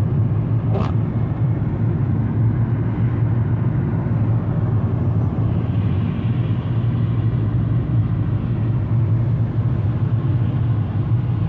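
Steady low road rumble inside a moving car's cabin, its tyres running on a wet road. A single short click just under a second in.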